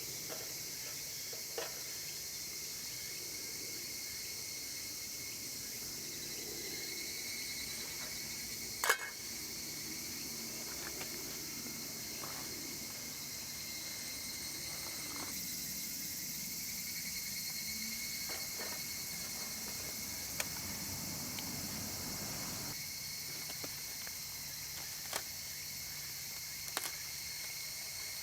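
Steady high-pitched drone of summer insects, with a few light clicks and knocks scattered through it; the sharpest click comes about nine seconds in.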